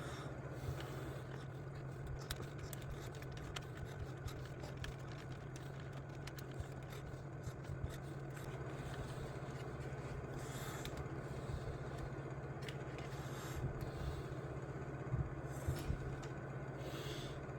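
Small clicks, taps and scrapes of RC truck parts and tools being handled, over a steady low hum.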